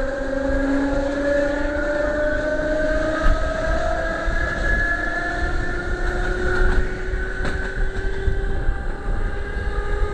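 Mafersa series 1700 electric multiple unit pulling away, its traction motors giving a whine of several tones that rises slowly in pitch as the train gathers speed, over a steady low rumble of wheels on rail.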